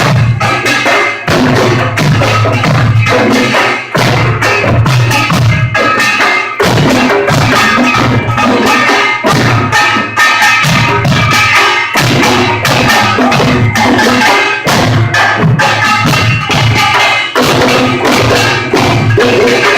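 Pungmul percussion ensemble playing a fast, driving rhythm: small kkwaenggwari gongs clanging over janggu and buk drums, loud and harsh on a phone recording.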